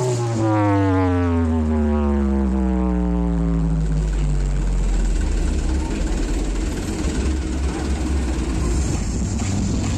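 Giant carnival sound-system speaker stack putting out a deep electronic tone that glides down in pitch over about four seconds, then a steady heavy bass drone.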